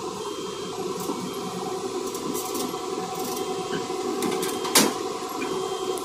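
Hyundai Robex 215 crawler excavator's diesel engine and hydraulics running under load as the loaded bucket swings over a tipper truck, with a sharp metallic clank near the fifth second. A faint high beep repeats about once a second.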